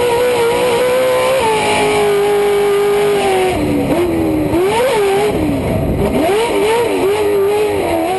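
Pro 2 short-course race truck's V8 engine heard from inside the cab, running hard at a steady pitch, dropping a step in pitch about a second in, then rising and falling quickly through several throttle changes in the second half.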